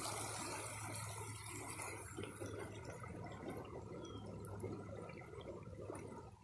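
Floodwater in a swollen creek rushing fast as rapids, a steady wash of water noise that grows somewhat fainter toward the end.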